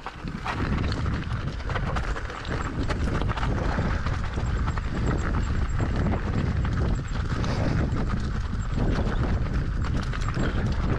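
E-bike jolting over a rocky mountain path: a continuous run of irregular knocks and rattles from the tyres and frame hitting stones, over a steady low rumble.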